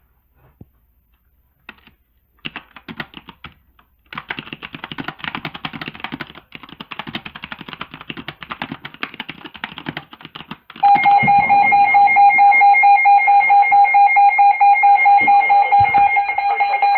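NOAA Weather Radio emergency alert opening: several seconds of rapid crackling, buzzing data noise, the SAME header codes of the alert. About eleven seconds in, a loud steady alert tone starts and holds.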